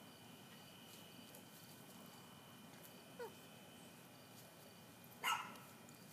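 A dog gives a short, falling whimper about three seconds in and a sharp yip about five seconds in, the loudest sound here, over a faint steady drone of insects.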